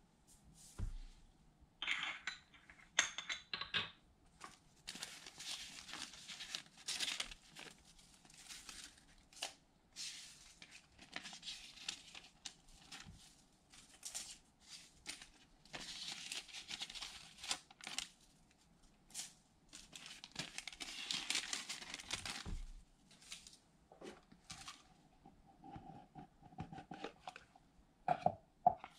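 Thin metallic foil being torn and crinkled by hand in a series of rustling stretches, with scattered light clicks and taps in between.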